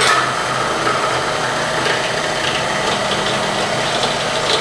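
Drill press running with a steady whine while its bit is fed down by the handle to drill out the bolt hole in a frame saddle block.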